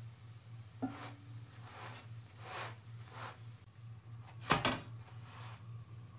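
Metal spatula scraping and knocking on a heavy frying pan as a msemen flatbread is lifted and turned over, in a handful of short strokes with the loudest knock about four and a half seconds in, over a steady low hum.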